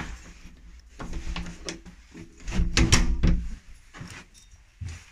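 A door being opened, its hinges creaking in two drawn-out stretches, with knocks and clicks in between.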